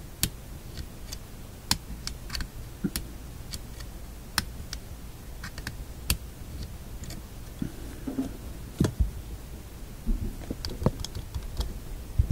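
Irregular light clicks and taps of small metal parts being handled, a few each second, as a magnet is worked on a shadow meter's magnet assembly.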